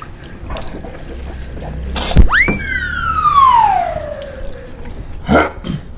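A whistle-like tone that shoots up sharply, then glides slowly down in pitch over about two seconds, just after a short click.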